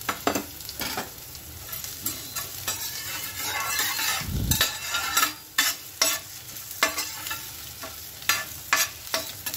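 A metal spoon scrapes and clinks against a stainless steel kadai in irregular strokes while stirring a tadka. Mustard seeds, chopped ginger and chana dal sizzle in the hot oil beneath it.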